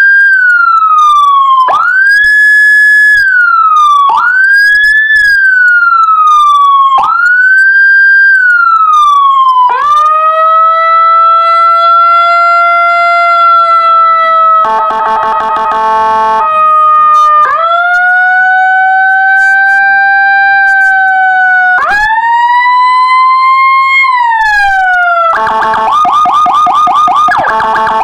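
Electronic police siren in the style of the Whelen HHS 3200, played loudly through a TOA horn speaker and cycling through its tones. First come short rising-and-falling wails every two to three seconds, then long slow wails, broken about halfway by a brief rapid warble, and a fast pulsing tone near the end.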